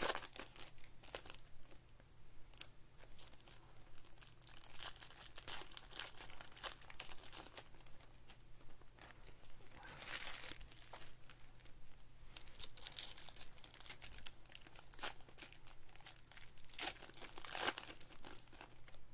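Foil trading-card packs (Panini Select basketball) being crinkled and torn open by hand, an irregular run of crackly rustles with louder bursts about halfway through and again near the end.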